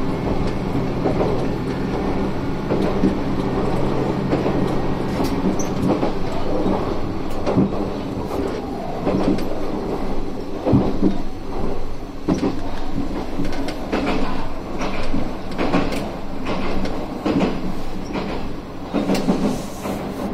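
Isumi 350 series diesel railcar running along the line, heard from inside the car. A steady engine drone is strongest in the first few seconds, and the wheels knock and click over the track, more often in the second half.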